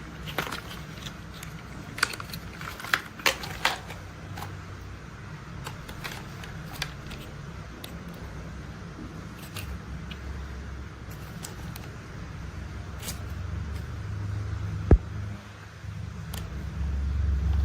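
Plastic toy construction vehicles being handled, with scattered clicks and rattles. A low engine-like rumble builds in the second half, and there is one loud sharp click near the end.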